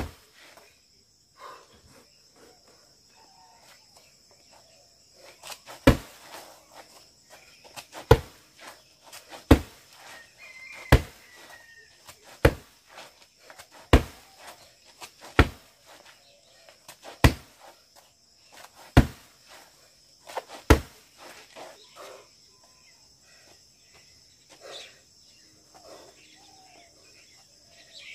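Roundhouse kicks slapping into a kick pad strapped to a tree trunk: about ten sharp hits, one every one and a half to two seconds, stopping about three-quarters of the way through. A steady high-pitched insect drone runs underneath.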